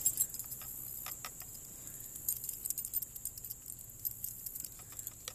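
Scattered light metallic clicks and jingling from a flintlock rifle's lock being handled and shaken to work priming powder down the touch hole into the barrel, with the small touch-hole pick hanging on its chain rattling against the lock.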